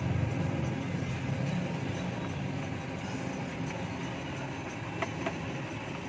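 Steady low mechanical rumble, with two faint short ticks about five seconds in.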